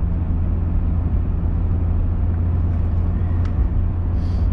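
Steady low drone of a pickup truck's engine and road noise, heard from inside the cab while driving.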